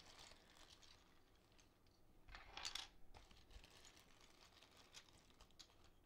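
Faint clicking of loose plastic keycaps handled and sorted by hand, with a slightly louder clatter about two and a half seconds in.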